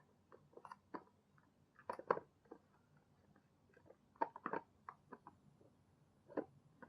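Scattered soft clicks and taps at irregular intervals, clustered about two seconds in and again around four and a half seconds in, as of small objects being handled.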